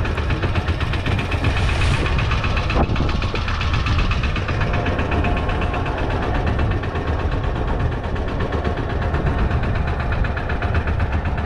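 Fishing boat's engine running steadily at idle, a continuous low rumble with a fast, even pulse, and a single brief knock about three seconds in.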